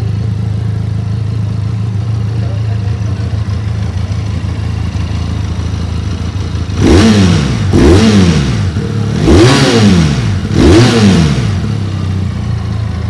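Benelli Leoncino 500's 500cc inline-twin engine idling steadily through its exhaust, then blipped four times in quick succession from about seven seconds in, each rev rising and falling in pitch, before settling back to idle.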